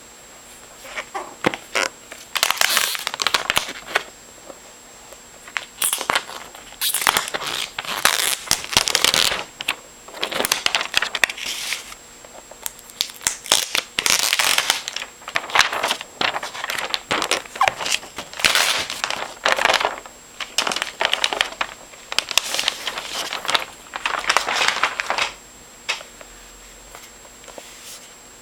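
Plastic protective wrap being peeled and crinkled off a new MacBook, in irregular bursts of crackling with short pauses between.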